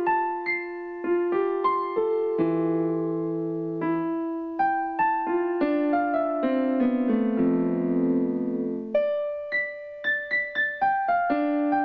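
Background music: a keyboard melody of struck notes, with longer held notes and chords about halfway through.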